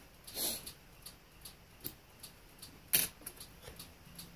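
Faint handling of a leather work boot: a brief rustle about half a second in, a sharp click about three seconds in, and a few light ticks.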